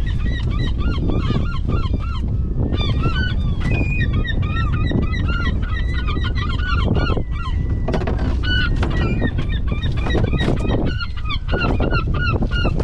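A flock of gulls calling overhead: many short, overlapping squawks and cries, some bending up and down in pitch, with a steady low rumble underneath.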